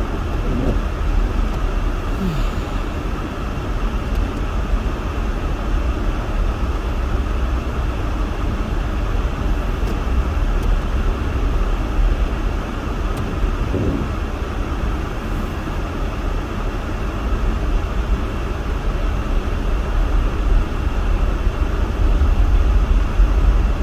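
Steady low rumble and hiss inside a van's cabin with the engine running, with no distinct knocks or events.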